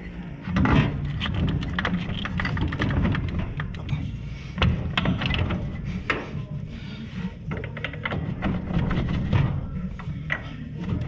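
Irregular knocks, clinks and clatter of metal parts being handled while the starter motor and lines are fitted to a race car's gearbox.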